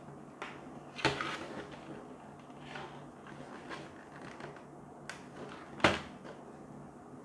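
T5 LED tube lamps being pushed and slid along a table, with light scraping and clicks and two sharp knocks, one about a second in and a louder one about six seconds in.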